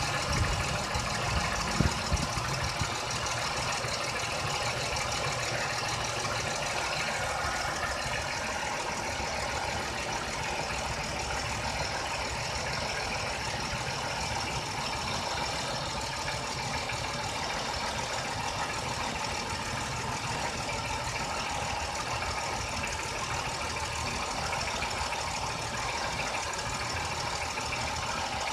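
GM 3100 V6 engine of a 1997 Oldsmobile Cutlass Supreme running steadily, with a couple of louder knocks about one to two seconds in. The owner asks whether the engine's noise is piston slap.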